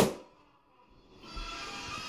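A balloon bursting with one loud sharp bang at the very start, cut off into about a second of dead silence; background music then comes back in.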